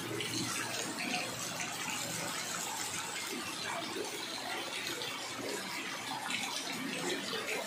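Steady heavy rain falling into floodwater that covers a street, a continuous even splashing hiss.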